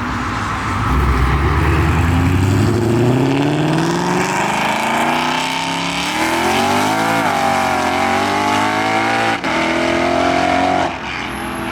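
Modified Ford Shelby GT500's supercharged 5.2-litre V8 accelerating hard at full throttle. Its pitch climbs for several seconds, then drops and climbs again at the gear changes about seven and nine seconds in.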